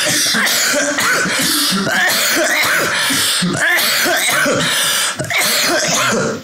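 A man coughing hard in a long, unbroken fit, one harsh cough after another.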